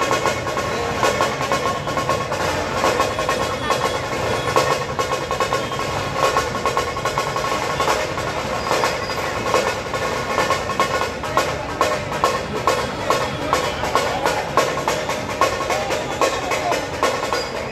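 A dhol-tasha ensemble playing: large barrel-shaped dhol drums and small tasha drums struck together in a dense, fast, unbroken drumbeat.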